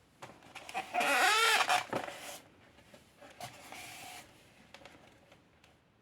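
A rooster crowing once, loud and harsh with a rising-then-falling pitch, followed by a fainter, shorter call about three and a half seconds in.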